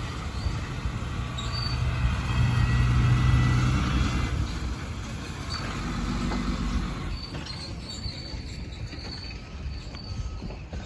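Heavy vehicle engine running with a low rumble, swelling to its loudest about two to four seconds in as it comes close, then easing off.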